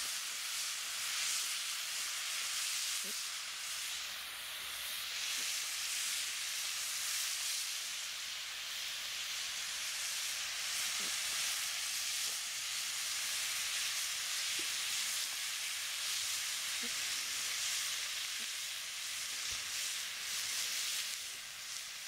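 Turkey kielbasa and olive-oil-marinated vegetables sizzling in a 12-inch Lodge cast iron skillet over campfire coals: a steady frying hiss with a few faint pops.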